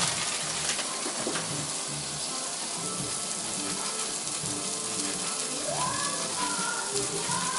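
Ground turkey burgers frying in a skillet, a steady sizzle. Faint background music, with a melody coming in about three-quarters of the way through.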